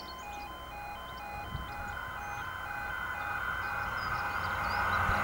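Level crossing warning alarm sounding a steady alternating two-tone pattern, with birds chirping. An approaching train's rumble grows steadily louder from about two seconds in.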